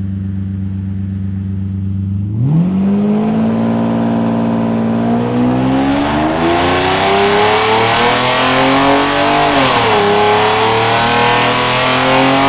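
Mercedes SL600's V12 engine idling, then run at full throttle on a chassis dynamometer, its revs climbing steadily over several seconds, dipping briefly about ten seconds in, then climbing again. The exhaust runs as two separate six-cylinder banks with no Y-pipe, catalytic converters still fitted.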